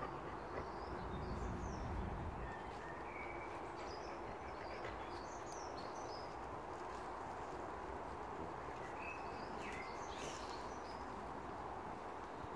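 Breeze rustling through woodland trees, a steady hiss, with wild birds chirping and singing in short phrases throughout. A low rumble sits under it for the first two seconds or so.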